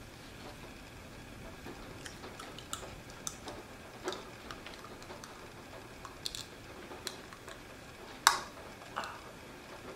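Clear plastic dental aligners being pressed onto the lower teeth with the fingertips: scattered small clicks and snaps as the trays seat, the loudest one near the end.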